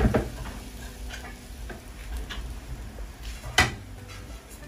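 Kitchenware knocking against a steel cooking pot: one sharp knock at the start and another about three and a half seconds in, with faint light ticks between, over a low steady hum.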